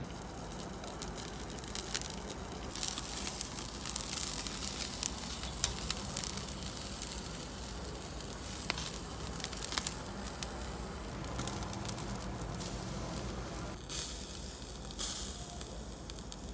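Red meat and chicken pieces sizzling on a charcoal kettle grill over glowing coals, a steady hiss with many small crackles and pops.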